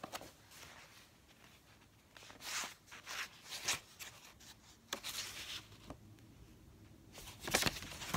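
Pages of a picture book being handled and turned: soft, scattered paper rustles, the loudest one near the end.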